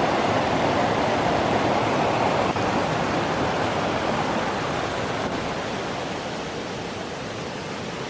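Mountain waterfall cascading over rocks into a pool, a steady rush of water that eases off a little in the last few seconds.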